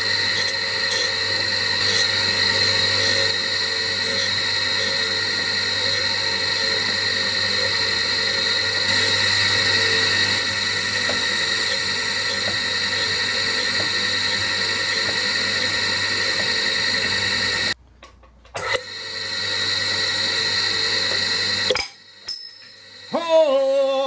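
Surface grinder's abrasive wheel grinding steel on a magnetic chuck: a steady grinding hiss with light ticks about twice a second. The sound cuts off abruptly about 18 s in and again about 22 s in, and a short falling tone comes near the end.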